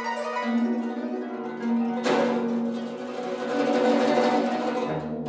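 Solo guzheng (Chinese zither) being played: plucked notes ring over a repeated low note, with a sharp, loud pluck about two seconds in that rings on.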